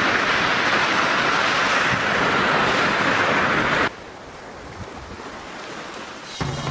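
Loud, steady rush of wind and surf that cuts off abruptly about four seconds in, leaving quieter waves washing onto a beach. Music with low notes and drum hits begins just before the end.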